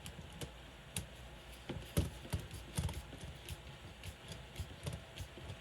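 Irregular small clicks and taps from a hand tool tightening a small screw into the plastic shock and link mounts of an RC crawler's front axle.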